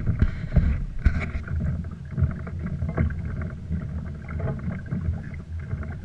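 Low wind rumble on the microphone, with scattered small knocks and a couple of brief noisy bursts in the first second and a half, as of handling or splashing aboard a kayak.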